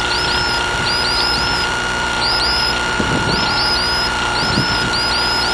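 Mazda rotary engine of a homebuilt Dyke Delta running steadily on the ground during engine checks, heard through the aircraft's intercom as an even drone with steady high tones and many short repeated high chirps over it.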